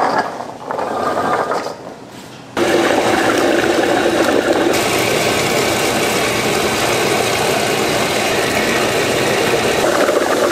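Peeled garlic cloves tumbling from a steel bowl into a stainless-steel garlic grinder's hopper, then about two and a half seconds in the grinder starts abruptly and runs with a loud, steady noise as it minces the cloves.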